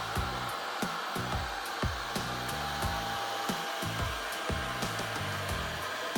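Hair dryer blowing steadily, with a thin steady whine from its motor, over background music with a regular beat.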